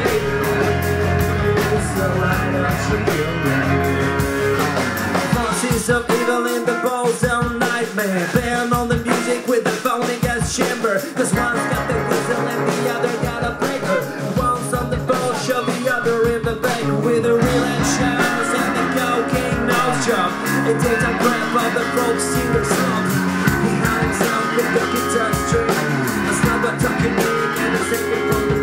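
Live rock band of two electric guitars, bass guitar and drums playing a song, with steady drum hits throughout. The deepest bass drops back about six seconds in.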